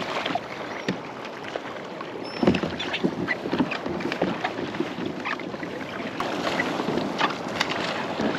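Water splashing and lapping along the hull of a Hobie Outback pedal kayak being pedaled hard, with irregular small splashes and knocks.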